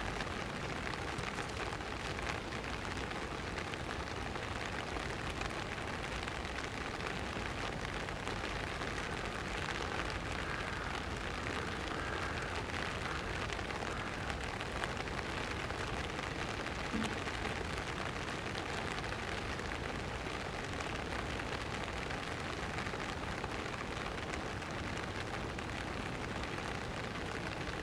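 Steady rain falling, an even hiss that does not let up. One faint tap comes about two-thirds of the way through.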